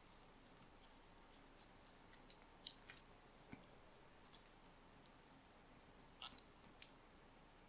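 Near silence with faint, scattered crackles and rustles of satin ribbon strands being handled and pulled tight in a woven knot, a few small clusters of them about a third of the way in and again near the end.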